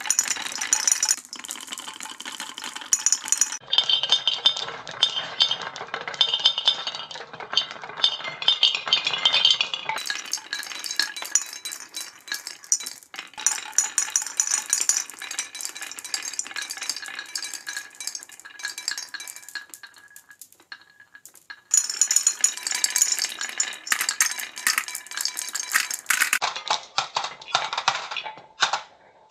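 Many small hard balls clicking and clattering as they roll down a wooden marble run and tumble through bowl-shaped trays, in a dense, rapid rattle. The sound changes abruptly several times between segments. Near the end, balls drop off a wooden ramp into a plastic toy dump truck bed.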